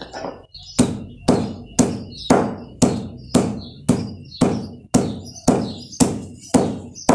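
Small wooden-handled sledgehammer pounding a tied denim bag of dried fruit and vegetable peels, seeds and eggshells against a concrete floor, crushing them to powder for fertilizer. Steady blows at about two a second, each a dull thud with a brief crunch.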